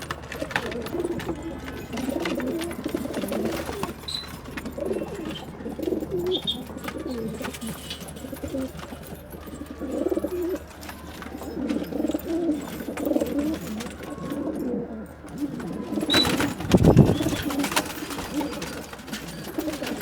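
Domestic pigeons cooing over and over, several low coos overlapping. About three-quarters of the way through comes a louder burst of noise, the loudest sound here.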